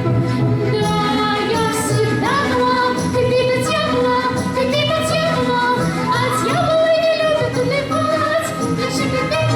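A woman singing an operetta song in a light classical style over instrumental accompaniment, her voice sliding between held notes.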